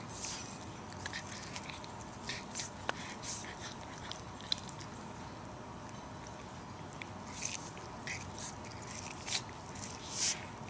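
A cat biting and chewing kernels off a cob of corn: irregular crisp crunches, with louder bites about three-quarters of the way in and again near the end.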